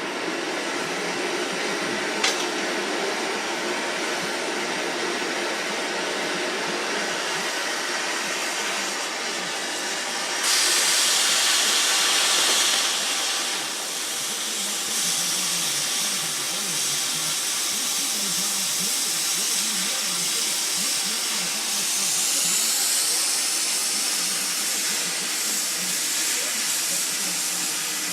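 Oxy-acetylene cutting torch hissing steadily as it cuts steel. There is one sharp click about two seconds in, and the hiss grows louder and brighter for about three seconds starting around ten seconds in.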